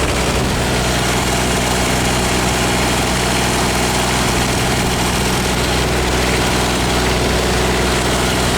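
Grasshopper 722D mower's 22 hp Kubota diesel engine running steadily at an even speed.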